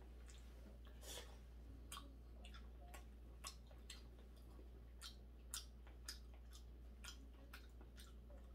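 Quiet eating sounds of a man chewing raw cutlassfish with chopsticks: a run of small irregular clicks, about two a second, over a faint steady low hum.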